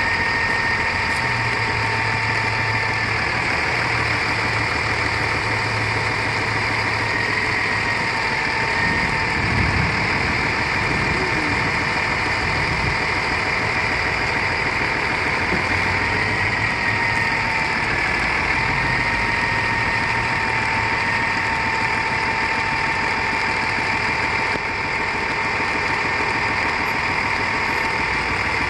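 Diesel engine of a 2011 Freightliner Altec AT37G bucket truck idling steadily while the aerial boom is being moved, with a steady high tone over the engine hum that sags slightly in pitch a few times.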